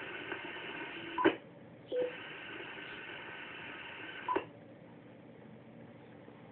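Icom IC-9100 transceiver's receiver audio as the VHF dial is tuned: hiss with faint steady tones, broken by sharp clicks about a second in and again after about four seconds. A short beep comes about two seconds in, and it is quieter after the second click.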